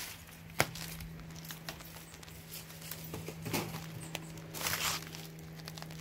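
Footsteps on a wooden plank footbridge with rustling of dry leaves and twigs, including one sharp knock about half a second in. A low steady hum runs underneath.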